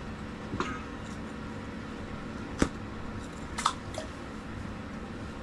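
A few sharp knocks inside a small room over a steady low hum: one faint knock early, a louder single knock about two and a half seconds in, and a quick double clack about a second later.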